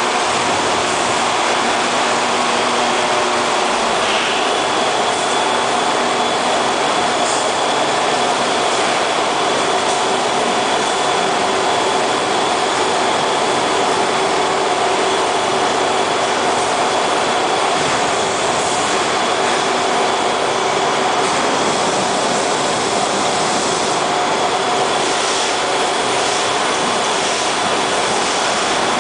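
Factory meatball line running: stainless wire-mesh conveyor belts and a spiral conveyor tower make a dense, steady rattle, with several steady machine hum tones over it.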